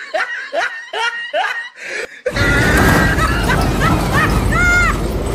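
A high-pitched laugh in quick, rising bursts, cut off abruptly about two seconds in by loud vehicle engine noise with a string of short pitched notes over it near the end.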